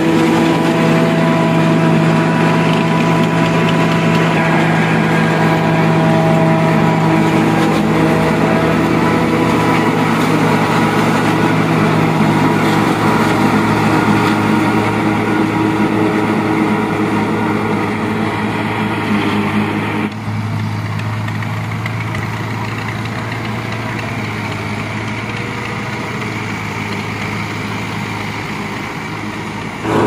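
Tractor engine running steadily under load, driving a PTO forage harvester that chops standing maize for silage and blows it into a trailer. About twenty seconds in, the sound shifts abruptly to a lower, slightly quieter steady drone.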